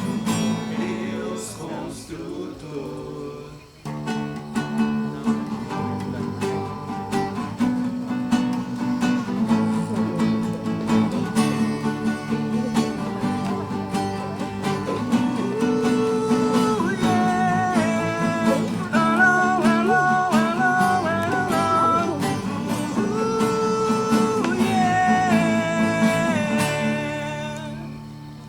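Acoustic guitar playing chords of a worship song, with a higher melody line over them from about halfway through; the music fades out near the end.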